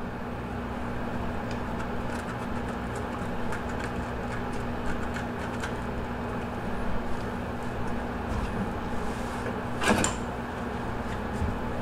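Steady machine hum, with faint clicks and scrapes of a bass being skinned by hand on a stainless steel table, and one sharp knock about ten seconds in as the fish is shifted on the steel.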